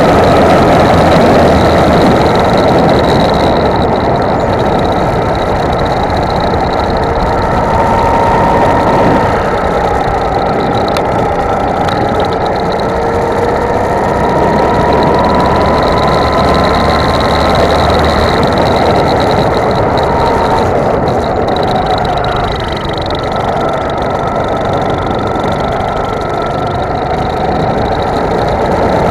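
Go-kart engine running hard, heard from on board the moving kart. Its pitch climbs slowly, drops about two-thirds of the way through, then climbs again as the revs rise and fall.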